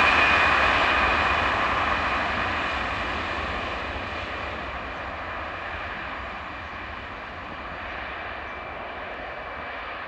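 Airbus A320-214's twin CFM56-5B turbofan engines at takeoff thrust during the takeoff roll, a high fan whine over a steady rush of jet noise. Loudest as the jet passes about at the start, then slowly fading as it rolls away.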